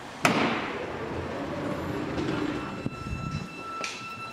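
Subway train and platform screen doors sliding open: a sudden burst of noise about a quarter second in that fades over about a second, then shuffling as passengers board. A steady high tone comes in about three seconds in.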